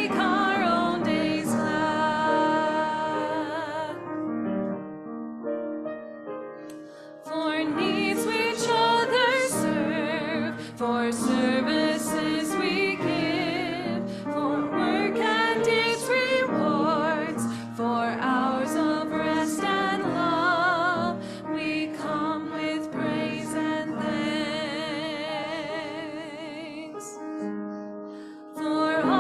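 A hymn sung by voices with vibrato over keyboard accompaniment. The singing eases off about four seconds in, leaving the accompaniment, and comes back strongly about three seconds later, as between verses. It dips again near the end.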